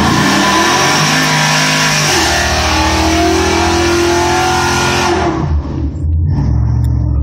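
Pickup trucks launching down a drag strip at full throttle, the engines revving up through the gears, then falling away sharply about five seconds in as they pull off down the track; one is a red Ford SVT Lightning.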